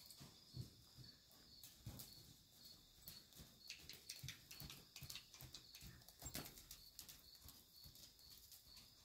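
Faint hoofbeats of a horse trotting on soft sand arena footing, loudest about halfway through as it passes close by.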